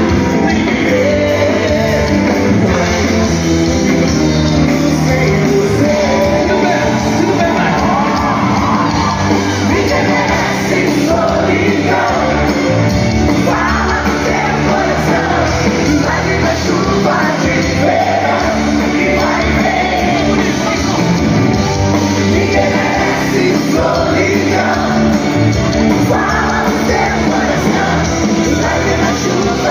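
Live band performing with a male lead singer, amplified through a concert sound system in a large hall and recorded from the audience.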